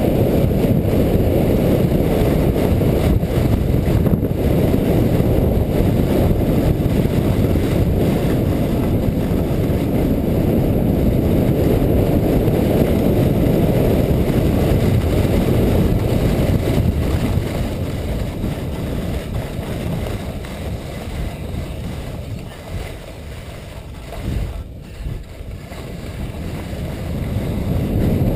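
Wind buffeting a GoPro microphone, together with the rumble of a sled's runners on groomed snow, during a fast luge run: a steady low rushing rumble. It eases off past the middle as the sled slows, then builds again near the end as the sled picks up speed.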